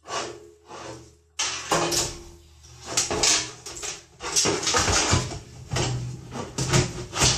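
Power supply cables and gloved hands rustling, scraping and knocking against a PC case as the power supply is pushed into its bay: irregular rustles and knocks, the loudest knock near the end.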